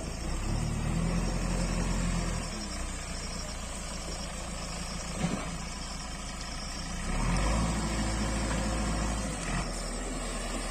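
JCB backhoe loader's diesel engine running steadily. It gets louder twice for a couple of seconds each time as the machine works, and there is one short knock midway.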